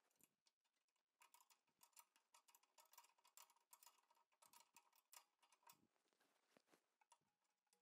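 Faint, rapid metallic clicking and ticking of a wrench and hex key working a nylock nut off a button-head screw, busiest from about a second in until about five seconds in.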